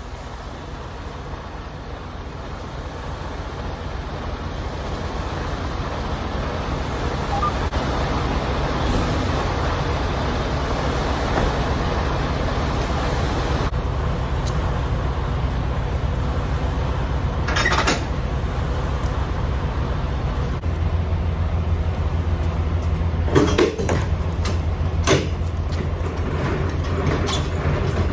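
A parked diesel semi tractor-trailer rig running steadily with a low hum that grows louder over the first several seconds and deepens about three-quarters of the way in. A sharp knock comes about two-thirds through, and a few more knocks and clicks come near the end.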